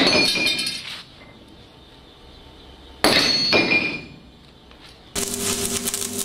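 Two hammer blows on metal, about three seconds apart, each ringing and dying away over about a second. About five seconds in, an electric arc welder strikes up: a steady crackle over a low hum.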